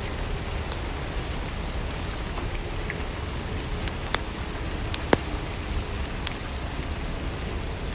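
Steady rainfall ambience, an even hiss of rain, with a few scattered sharp clicks through it.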